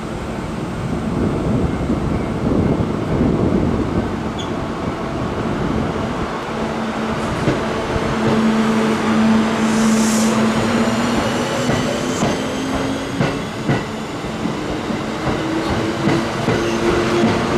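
Kintetsu limited express electric train pulling out of a station, its motor hum rising slowly in pitch as it gathers speed. Wheels click over rail joints, and there is a short hiss about ten seconds in.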